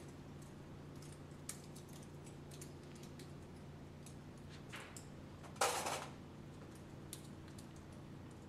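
Small masses from a weight set clicking and clinking in the hands as they are sorted, with scattered light ticks and a louder clatter lasting about half a second a little past halfway.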